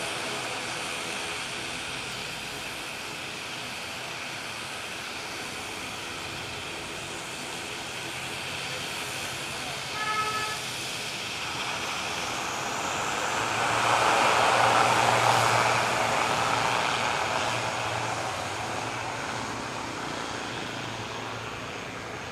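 Steady drone of an ATR 72-600 turboprop's engines on the runway, mixed with road traffic. A short car horn toots about ten seconds in, and a louder rushing noise swells and fades near the middle, loudest around fifteen seconds.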